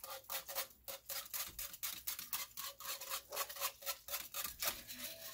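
Wire whisk beating quickly through broth in a cast iron Dutch oven, its wires scraping and swishing against the pot in rapid rhythmic strokes, several a second, working lumps of cream of chicken soup smooth.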